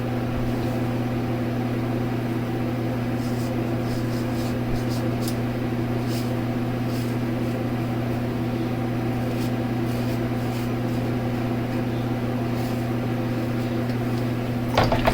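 Steady mechanical hum with a low, even tone and no change in level, with faint short scratchy ticks now and then.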